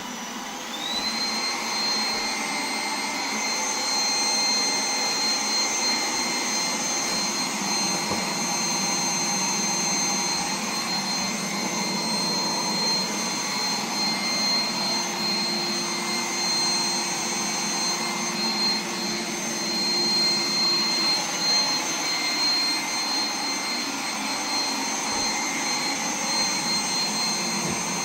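Roomba 980 robot vacuum starting up: its fan whines up to speed within the first second or so, then runs steadily with a high, even whine over the hum of the brushes.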